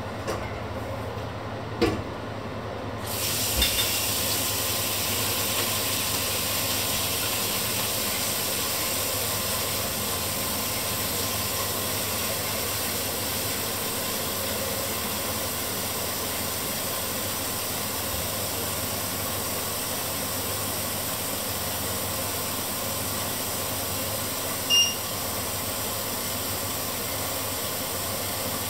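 A couple of clicks, then a steady, even hiss that starts suddenly about three seconds in and runs on unchanged. A short high ping near the end.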